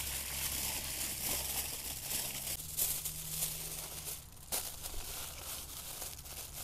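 Aluminium foil crinkling and crackling irregularly as it is folded and wrapped around a fish.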